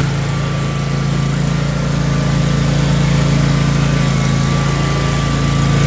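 John Deere X310 lawn tractor engine running steadily under load, driving its 44-inch front snowthrower.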